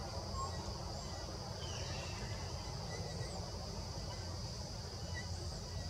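Forest ambience: a steady high-pitched insect drone with a few faint, short bird chirps over a low rumble.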